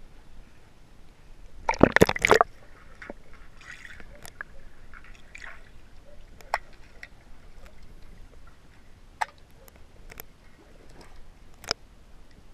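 Swimming-pool water sloshing and gurgling around a camera at and below the surface, with a loud splash about two seconds in. After it comes muffled underwater sloshing broken by a few sharp clicks.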